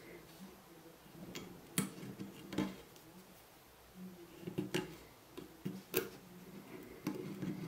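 A handful of short, sharp clicks and small knocks from a wooden toothpick being handled, pushed into a screw hole in a wooden board and broken off.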